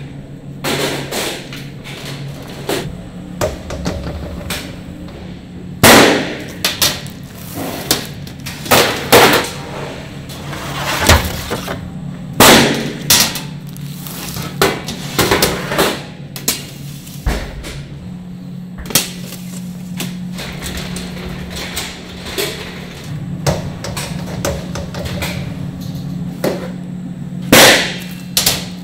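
Food-factory work noise: irregular sharp knocks and clanks, a few of them loud, over a steady machine hum.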